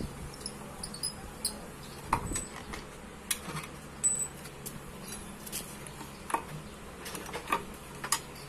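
Scattered light metallic clicks and clinks of a steel T-wrench and an aluminium radiator knocking against scooter engine parts as they are handled, over a faint steady low hum.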